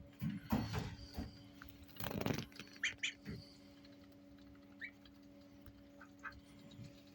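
Indian Runner ducklings peeping in short, scattered calls, with two bouts of rustling and scuffling in the first few seconds. A faint steady hum runs underneath.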